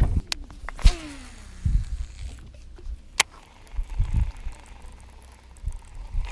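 Handling noise from a baitcasting rod and reel while a hooked bass is being played to the boat: scattered sharp clicks and low knocks, the loudest click about a second in, followed by a short falling squeak.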